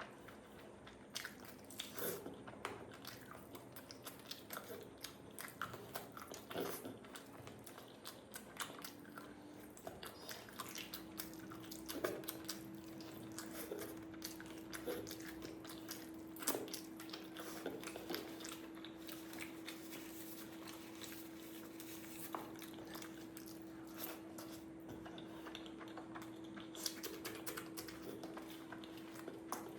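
Close-up eating sounds: a person chewing and biting through a curry-and-rice meal, with irregular wet mouth clicks and occasional crunches.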